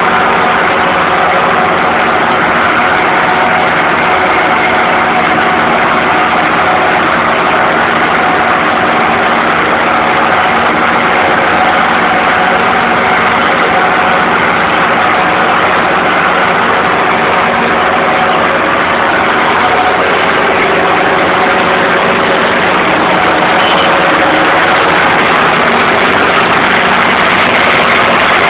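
Ferrari Fox front-deck ride-on mower running steadily while it cuts tall grass, its engine drone unbroken and loud.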